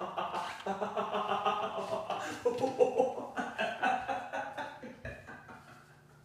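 A man laughing heartily in repeated ha-ha pulses, fading away near the end.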